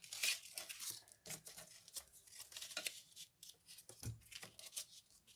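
Paper and cardstock rustling and crackling in a run of short, uneven scrapes and crinkles as they are handled and pressed together, with one dull tap on the cutting mat a little after four seconds in.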